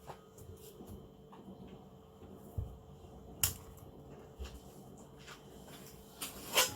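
Kitchen items being handled: scattered light knocks and clicks, a sharper click about halfway through, and a louder, longer rustle near the end.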